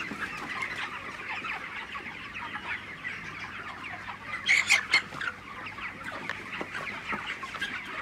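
A large flock of 33-day-old broiler chickens chirping and clucking steadily, many birds calling at once, with a few louder calls about halfway through.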